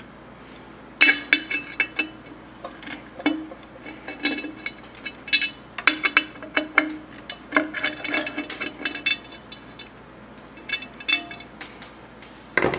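Sharp metallic clicks and clinks, irregular and in quick clusters, from the Marsh stencil machine's metal letter wheel and punch parts being turned and handled. They come thickly from about a second in, pause briefly, then come a few more times near the end.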